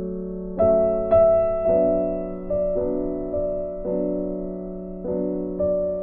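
Background music: gentle piano playing slow chords, a new chord struck about every half second to second, each fading away.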